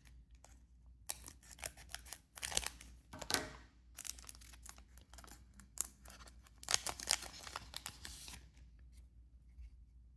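A trading-card booster pack being opened and its cards handled: several short bursts of crackling and tearing foil wrapper with card clicks.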